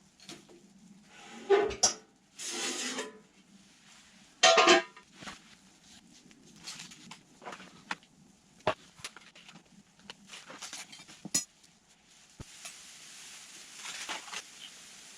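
Cookware and utensils clinking, scraping and knocking. There are a few loud clatters in the first five seconds, then sparser sharp knocks.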